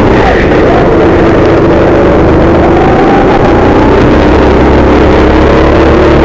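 Go-kart engine running at speed, its pitch climbing on the straights and dipping as the kart slows for corners. Rumble and wind noise from the helmet-mounted microphone sit under it.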